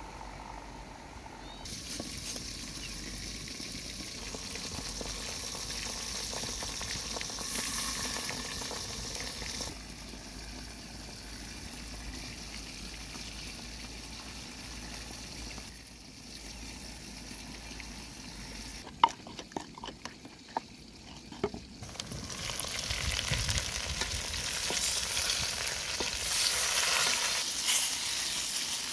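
Pork and wax gourd cooking in a pot over a wood fire, a steady hiss, stirred with a wooden spoon. A few sharp knocks come in a short run about two-thirds of the way through, and the cooking noise grows louder near the end.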